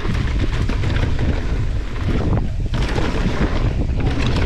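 Wind buffeting the microphone of a mountain bike's handlebar camera at speed, over the rumble of tyres on a dry dirt trail and the bike rattling over bumps, with a brief lull about halfway through.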